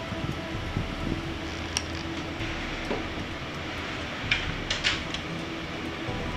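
A few sharp plastic clicks and knocks, one near two seconds in and a quick cluster later, as a black plastic bracket is handled and fitted onto a motorcycle's rear frame. Under them runs a steady mechanical hum.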